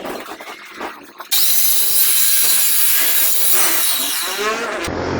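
A few light knocks, then a saw starts cutting through wood about a second in, running loud and steady for about three and a half seconds before cutting off abruptly.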